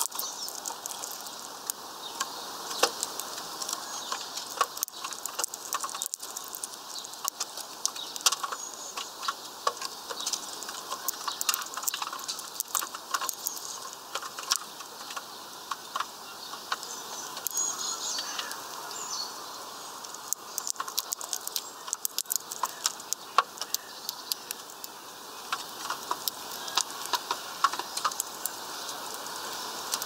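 European greenfinch cracking and husking sunflower seeds in its bill: a steady, irregular run of sharp clicks and crackles.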